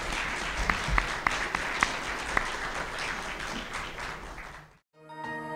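Audience applauding, a dense patter of hand claps that cuts off abruptly about four and a half seconds in. Outro music with sustained notes begins just before the end.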